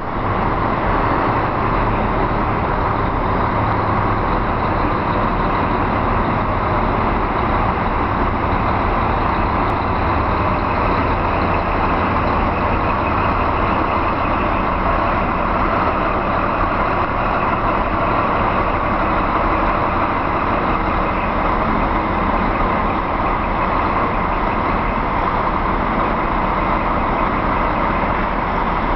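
Scania tractor unit's diesel engine running steadily at low speed as the truck and trailer maneuver slowly, with no revving or braking.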